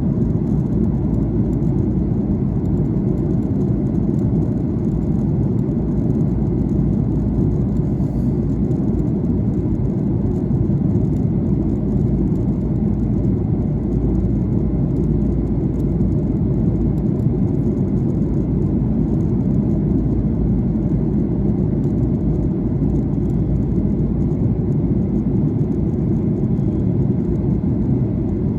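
Airplane cabin noise during descent: a steady low rumble of engines and airflow.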